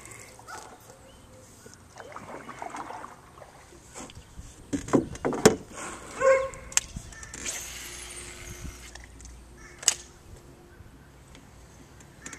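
Dogs barking in the neighbourhood, a few short barks. About halfway through comes a cluster of loud knocks and clatters, and a faint steady hum follows in the second half.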